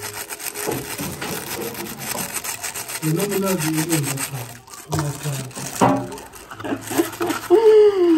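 Aluminium foil crinkling and rustling as a small foil packet is unwrapped by hand, with a short knock about six seconds in. A voice sounds briefly near the end.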